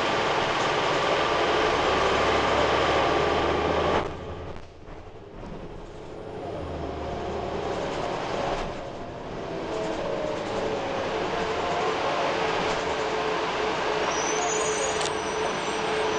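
Cabin noise inside an Orion VII CNG transit bus: a loud steady drone with a few held tones that drops off sharply about four seconds in, then builds back up gradually over the following ten seconds as the air-conditioning fan starts up again.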